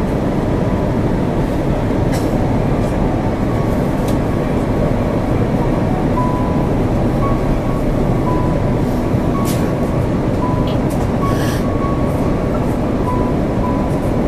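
Steady cabin roar inside an Airbus A330-300 airliner descending on approach: constant engine and airflow noise heard from a window seat, with a faint high whine coming and going and a few small clicks.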